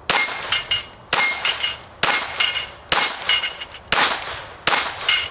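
Glock 44 .22LR pistol firing at steel plates: six sharp shots about a second apart. Most are followed by the metallic ring of a struck steel plate; the fifth, about four seconds in, has no ring and sounds like a miss.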